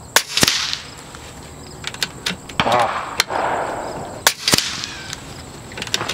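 Two shots from a .25 calibre Kalibrgun Cricket PCP air rifle, about four seconds apart. Each is a sharp crack followed a quarter of a second later by a second sharp knock as the slug strikes the target downrange.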